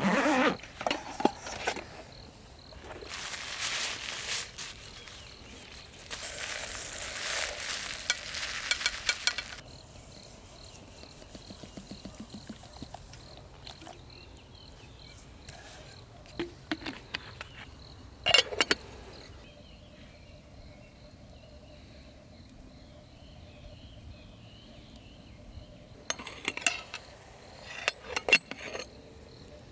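Camp cooking: two spells of hissing, the first about three seconds in and a longer one a few seconds later, with scattered clinks and knocks of metal cookware, the loudest near the start, around two-thirds of the way through and near the end.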